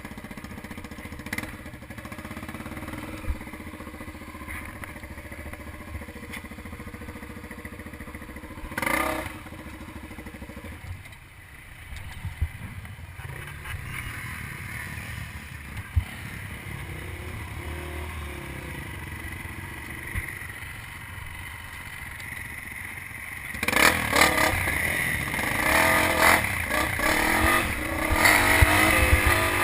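Dirt bike engine running on a trail ride, fairly steady at first, then louder with revving and rattling from about three quarters of the way in.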